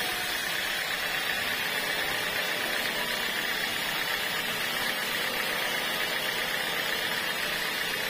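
Band sawmill running, its blade ripping lengthwise through a squared teak beam; a steady, even noise.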